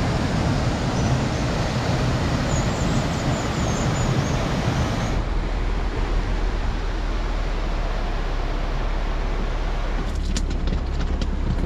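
Rushing whitewater of a waterfall and river pool, a loud steady roar, for about five seconds. It then cuts abruptly to a Jeep driving slowly over a rocky trail: a steady low rumble, with sharp clicks and knocks in the last second or two.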